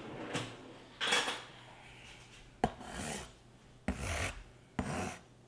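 Short scrapes and rubs of a large kitchen butcher knife being picked up and handled over a cardboard box, with a sharp click about two and a half seconds in.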